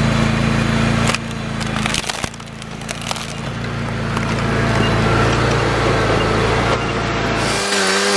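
A Boxer compact track loader's engine runs steadily as its rubber track rolls over a broken plastic Bruder toy bulldozer on gravel. Sharp cracks and crunching come as the toy breaks under the track, several of them in the first three seconds. Music comes in near the end.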